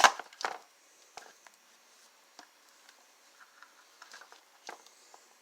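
Plastic toy packaging being handled: a loud sharp crackle at the start and another about half a second in, then faint scattered light ticks and taps.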